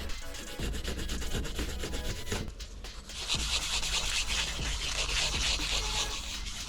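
Scratchy rubbing on a surface, like hand abrading or scraping, over a steady low hum; it grows louder and brighter about three seconds in.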